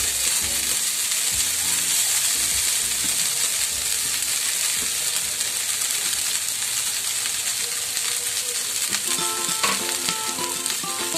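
Steady sizzling of vegetables and freshly added cooked rice frying in hot oil in a pan. Background music comes in about nine seconds in.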